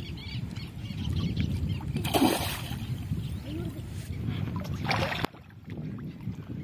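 A hooked fish splashing in shallow water at the rocky edge as it is drawn in on the line, with two sharp splashes, the louder one about two seconds in, over a steady low wind rumble. The sound cuts off suddenly just after five seconds.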